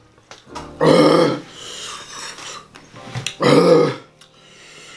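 A man burping twice, about a second in and again about three and a half seconds in. These are "heat burps" brought on by eating very hot, pepper-sauced chicken wings.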